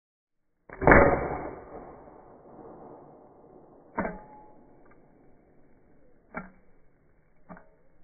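Sharp impacts: one loud hit about a second in that rings and fades over a couple of seconds, then three fainter, shorter knocks, one near the middle and two near the end.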